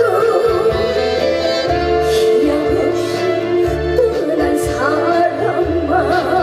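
Trot song music with a steady low beat under a bending, sliding melody line.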